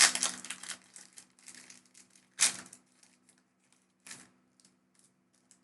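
Foil booster-pack wrapper being torn open and crinkled: a dense crackle in the first second, sharper rustles about two and a half and four seconds in, then scattered faint crackles.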